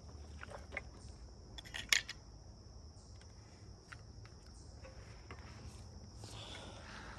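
A few light metallic clicks and taps as a chainsaw chain is shifted by hand on its bar, the loudest about two seconds in.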